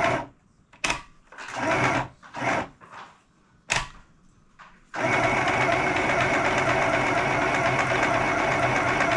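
Small electric sewing machine stitching in a few short stop-start bursts, then running steadily without a break from about five seconds in.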